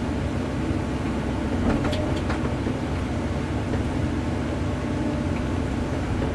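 Small excavator's diesel engine running steadily under load, heard from the cab, as its grapple presses down on a scrap minivan's roof to crush it. A few brief crunches of sheet metal come about two seconds in.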